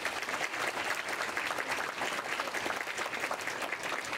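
An audience applauding steadily, many hands clapping in a dense patter.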